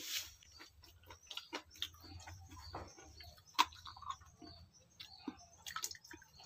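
Close-up eating sounds of pakhala (fermented watered rice) eaten by hand: irregular soft mouth clicks and smacks of chewing, with a sharper click about three and a half seconds in.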